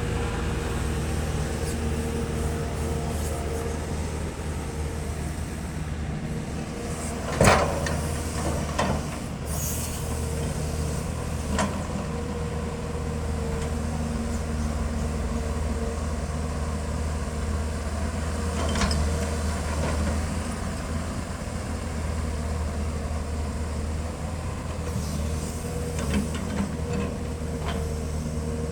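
Caterpillar 320 excavator's diesel engine running steadily under load, with a steady hydraulic whine, and a few sharp clanks and knocks from the bucket and boom, the loudest about a quarter of the way in.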